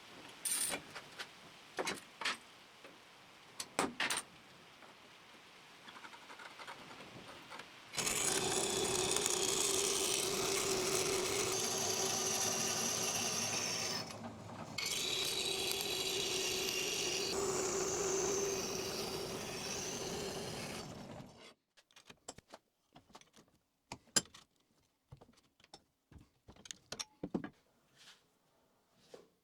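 A power tool running steadily for about thirteen seconds, stopping briefly partway through, with scattered clicks and knocks of handling before and after.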